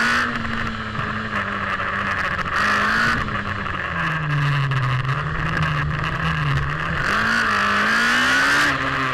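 Onboard sound of a single-seater race car's engine driven hard through a slalom, its note rising and falling repeatedly with the throttle. A louder, higher hiss comes in three times, near the start, about three seconds in, and in the last two seconds.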